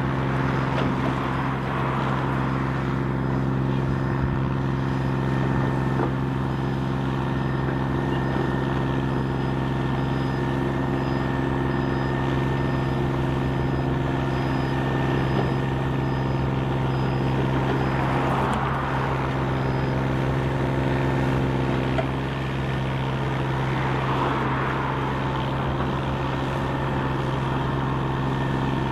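Heavy diesel construction machinery running steadily: a Cat 323E L excavator and a single-drum roller compactor working gravel. It is a continuous low engine drone with a faint high-pitched beeping repeating through the first two-thirds. Twice in the later part, a brief swell of rushing noise rises and falls.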